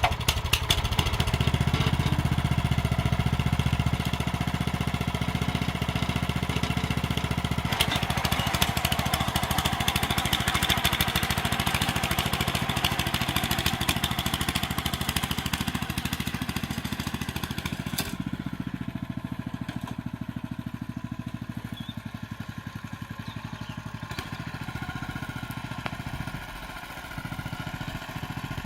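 Honda FJ500 tiller's small single-cylinder petrol engine running steadily just after it has started. About eighteen seconds in the high hiss drops away, and it runs a little quieter toward the end.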